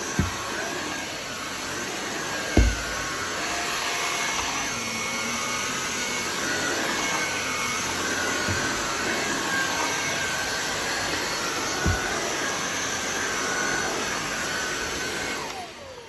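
INSE S600 cordless stick vacuum running steadily in handheld mode, its motorized floor head on carpeted stairs, with a few knocks as the head is worked along the stair. Near the end it is switched off and the motor winds down with a falling whine.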